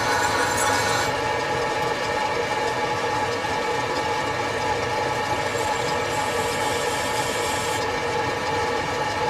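Metal-turning lathe running steadily: a constant machine whine of several steady tones over a continuous hiss.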